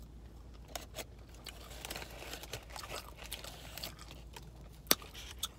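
Close-up mouth sounds of someone chewing french fries: soft, irregular wet clicks and smacks, with one sharp click near the end.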